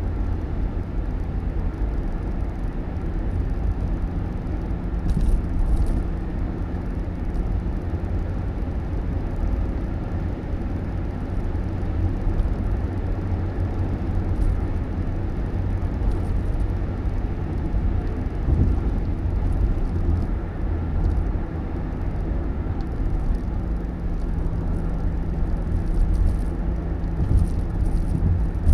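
Steady low rumble of a motor vehicle on the move: engine hum and road noise.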